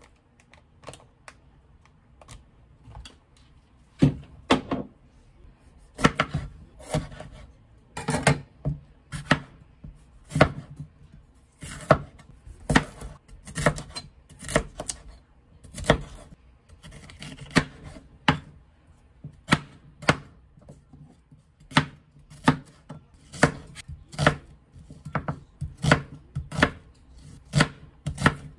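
Kitchen knife chopping bell peppers and onion on a wooden cutting board: sharp knocks of the blade hitting the board, about one to two a second, starting about four seconds in.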